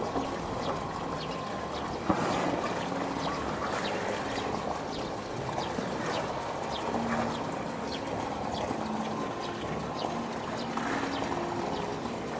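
Water sloshing and splashing as a young polar bear swims and paddles in a pool, over a steady rush of water, with many small splashes and drips.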